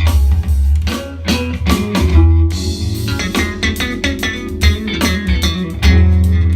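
Guitar-led instrumental music with a heavy bass line, played in stereo through a pair of Klipsch RP-150M bookshelf speakers driven by a Denon X2300 receiver and picked up by a phone in the room.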